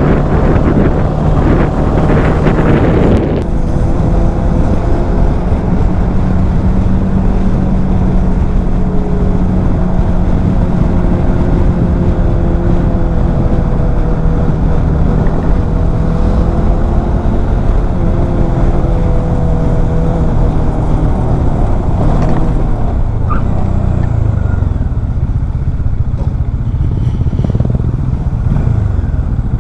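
Bajaj Dominar 400's single-cylinder engine running steadily while cruising, with heavy wind buffeting on the microphone for the first few seconds. The engine note changes about twenty-two seconds in.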